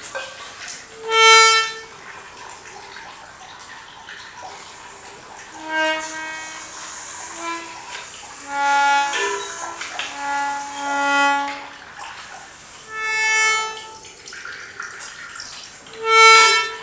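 Self-playing reed instruments sounding a series of reedy notes, single tones and two-note chords, each swelling up and fading away over about a second, with short gaps between them. A faint hiss runs underneath.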